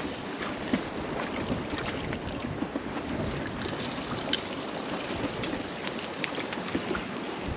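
Wind buffeting the microphone over water lapping, with a run of small clicks and taps in the middle.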